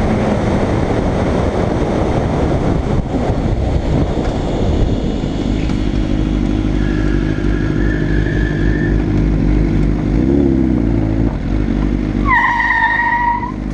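Sport motorcycle riding along a road: engine running under steady wind rush, its pitch rising and falling briefly about ten seconds in. A horn sounds one long steady note for about a second near the end.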